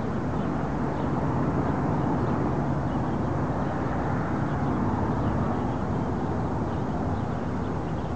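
Diesel locomotives idling: a steady low rumble with a faint hum, unchanging throughout.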